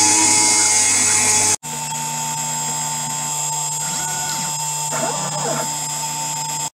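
Small CNC milling machine's spindle running at high speed as its cutter mills aluminium, a steady high whine over a hiss. It breaks off sharply about a second and a half in, resumes, and stops abruptly near the end.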